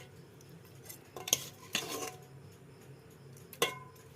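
Metal utensil clinking and scraping against a cooking pot: two quick knocks just after a second in, a longer scrape around two seconds, and a ringing clank near the end.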